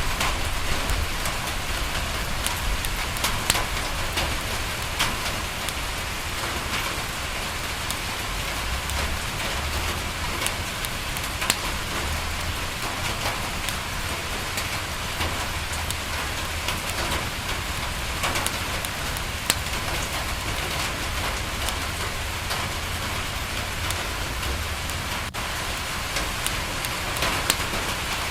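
Steady rain on a window, with scattered sharp crackles and ticks throughout and a low rumble that swells and fades.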